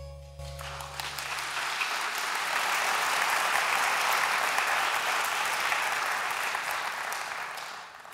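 Audience applauding, starting about half a second in and dying away near the end. The low ring of the music's last note fades out under the first two seconds.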